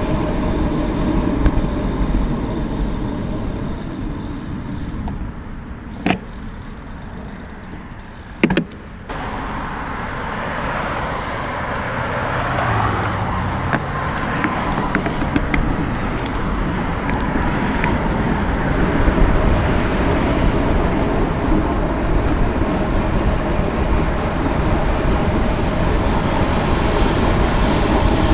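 Riding noise on a bicycle in city traffic: a steady rush of wind and tyres with cars driving around, quieter for a few seconds in the first third. Two short sharp clicks come about six and eight and a half seconds in.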